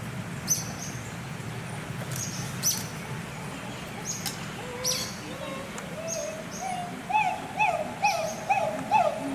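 An adult chimpanzee pant-hooting: a series of rising-and-falling hoots, about two a second, starting about six seconds in and growing louder as the call builds up.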